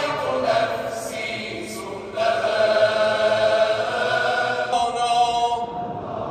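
Religious chanting in long, held phrases through the hall's loudspeakers at an Eid congregational prayer. A new phrase begins about two seconds in.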